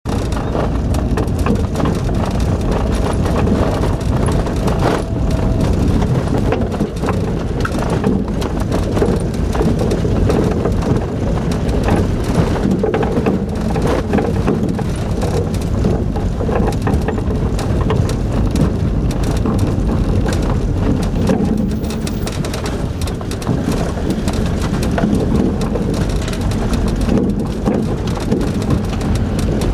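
Truck driving on a rough dirt road, heard from inside the cab: a steady low engine and tyre rumble with constant rattles and knocks from the bumpy, gravelly track.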